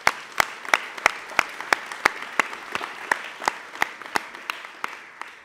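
Audience applauding in a hall, with one person's loud, sharp claps close to the microphone standing out at about three a second. The applause fades away near the end.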